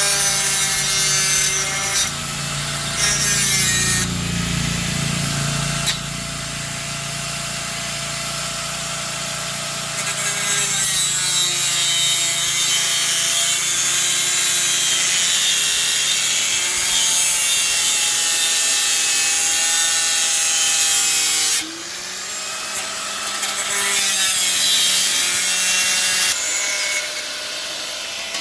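A power tool working on material: a harsh, loud hiss with a faint wavering whine, in long runs that ease off and pick up again several times.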